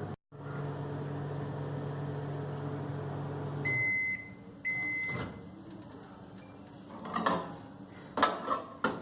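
Microwave oven running with a steady low hum that stops a few seconds in, followed by two beeps signalling the end of the cooking cycle. A few sharp clunks and knocks come after.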